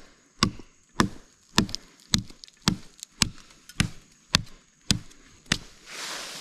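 Hatchet chopping a small live limb off a standing tree: about ten sharp strikes of the blade into the wood, evenly paced at about two a second, until the limb breaks away. A softer, steady hiss follows near the end.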